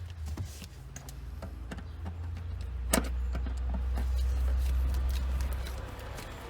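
Screws on a fuel pump access cover being tightened, heard as scattered small clicks with one sharp click about three seconds in, over a low steady rumble that swells and fades near the end.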